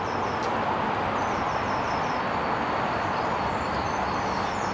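Steady rush of running river water, with a small bird repeating short, high, falling chirps over it.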